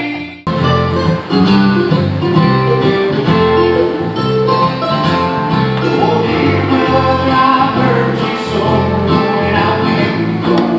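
A country-style song with singing over plucked guitar and a steady bass line. It drops out for a moment right at the start, then runs on.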